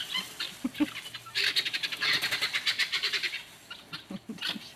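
Chickens clucking and squawking. A loud burst of rapid squawking starts about a second and a half in and lasts about two seconds.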